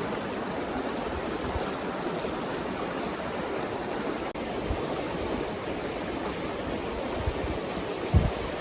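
River water flowing steadily, with a brief low thump near the end.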